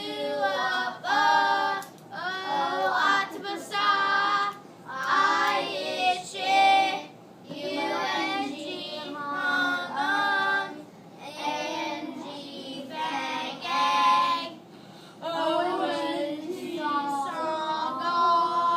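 A class of young children chanting in unison in a sing-song rhythm, reciting letter names, key words and their sounds in a phonics sound drill, in short phrases with brief pauses between them.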